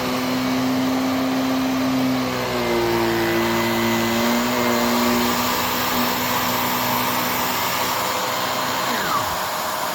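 Cecotec Conga Rockstar 3000 handheld mattress and upholstery vacuum running steadily while it goes over sofa fabric. Its motor tone shifts in pitch a few times from about two and a half seconds in and drops away near the end.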